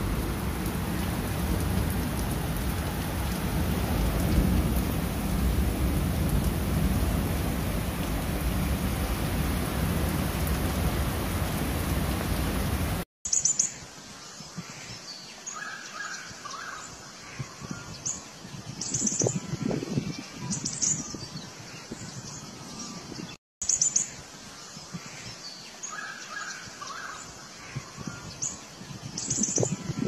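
Steady heavy rain with a deep rumble of thunder, cutting off suddenly about 13 seconds in. Then birds chirping with short, high calls over a quiet background. The same birdsong passage starts over after a brief dropout about ten seconds later.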